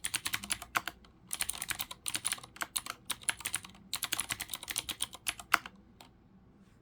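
Clicky blue mechanical key switches under PBT keycaps on a Leopold FC900R keyboard, typed on in quick bursts of keystrokes with short pauses. The typing stops about six seconds in.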